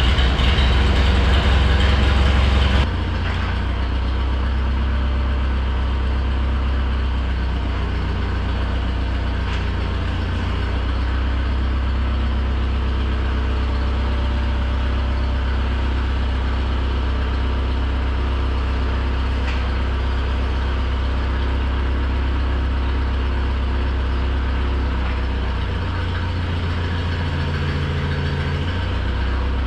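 Bobcat 843 skid-steer loader's diesel engine running steadily. It drops abruptly to a lower, quieter note about three seconds in, and the note shifts briefly near the end.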